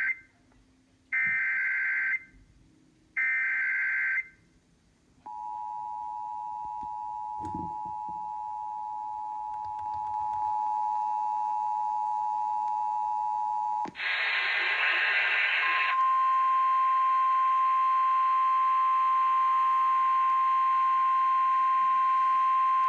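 Emergency Alert System tones on FM radio: the short, buzzy data bursts of the digital SAME header, then about eight seconds of the steady two-tone attention signal. A two-second burst of static follows, then a steady single-pitch tone, the National Weather Service warning alarm tone.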